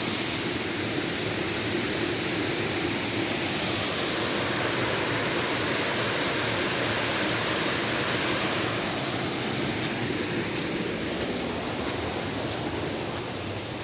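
Steady rush of a river's rapids and waterfall, a continuous hiss of running water whose higher part softens after about nine seconds.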